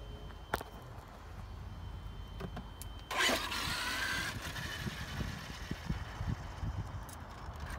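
Traxxas X-Maxx 8S RC monster truck (1600 kV brushless motor, 46-tooth spur gear) launching hard about three seconds in. The motor and drivetrain whine climbs sharply over a burst of tyre noise, then holds a steady high whine as the truck runs at speed.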